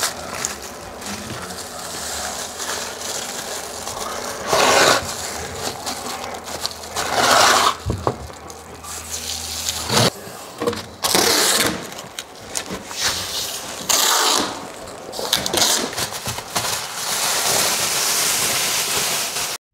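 Plastic masking sheeting rustling and crinkling as it is pulled out and smoothed flat against the wall, with uneven louder swishes.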